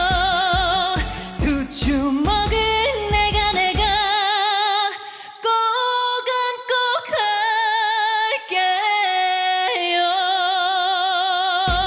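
Closing section of a trot song: a melody line with vibrato over the band. The bass and drums drop out about four seconds in, leaving the sustained melody alone, and come back in near the end.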